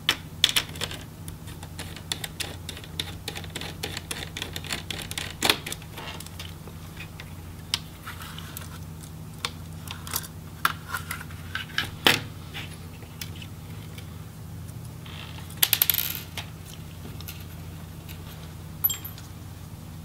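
Small Phillips screwdriver clicking and ticking against a laptop's heatsink screws as they are backed out, with light metallic clinks as the screws and the motherboard are handled. A quick run of sharp metallic clicks comes about three-quarters of the way through.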